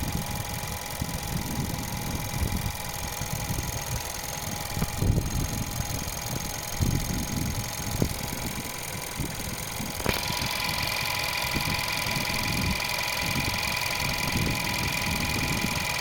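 Skoda Yeti 1.2 TSI turbocharged petrol engine idling, with a noise that the owner is unsure is the dreaded timing chain rattle or just the fuel pump ticking. About ten seconds in, a click sets off a higher steady whine, and the sound gets a little louder.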